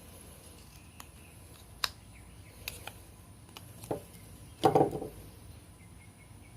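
Fixed-blade knife carving into hard seasoned oak: a few separate sharp clicks as the edge bites the wood, and a louder crunch about two thirds of the way through.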